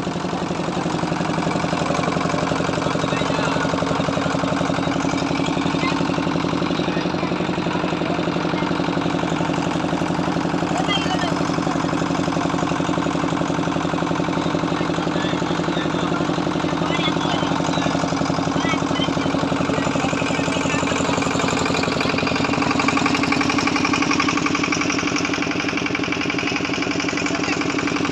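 Engine of a wooden passenger boat running steadily at an even pitch while under way on the river.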